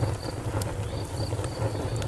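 Wood fire crackling, with scattered sharp pops over a low steady rumble. Throughout, a high thin chirp repeats about three times a second.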